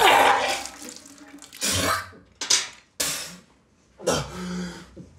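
A man retching and vomiting into a metal bucket: several harsh heaves in separate bursts, with a short groan about four seconds in.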